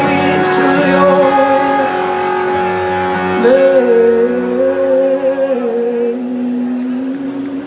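Live rock band playing a slow song, electric guitar chords ringing under a male lead singer, who holds one long wavering note about halfway through. Heard from within the audience through the venue's PA.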